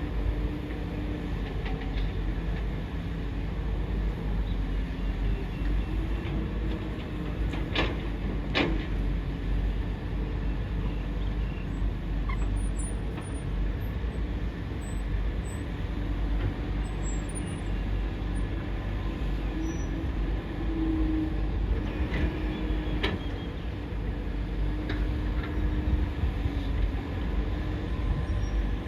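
Excavator at work: a steady low mechanical rumble with a faint wavering tone, and a couple of sharp clicks about eight seconds in.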